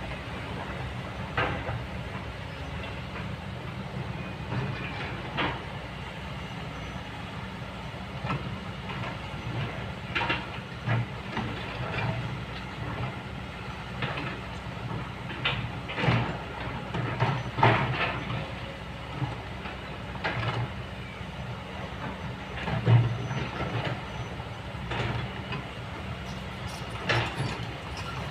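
Kobelco excavator's diesel engine running steadily, with irregular clanks and scrapes as its bucket works in rocks and gravel; the loudest knock comes about three-quarters of the way through.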